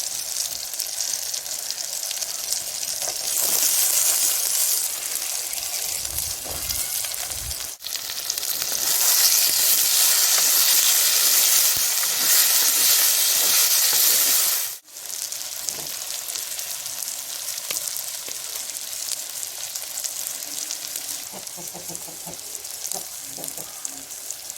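Food frying in hot oil in a pan, with a steady sizzle. Two brief breaks, about 8 and 15 seconds in, and the sizzle is loudest between them.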